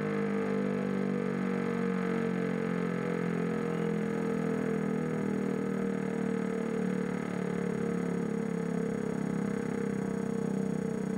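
Siemens FmSi 39 low-tone electric motor siren sounding a steady, deep wail, its pitch easing down slightly over the first few seconds and then holding.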